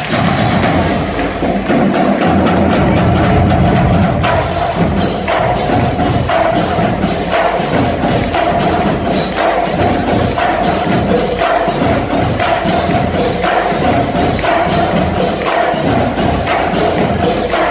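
Marching band drumline playing a percussion cadence: snare drums, bass drums and crash cymbals struck in a steady rhythm.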